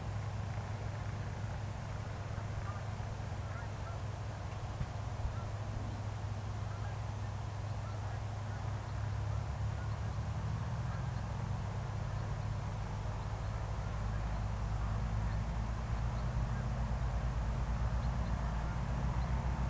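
Light aircraft's piston engine running, a low drone that grows louder about nine seconds in and again about fourteen seconds in, when it takes on a fast pulsing beat.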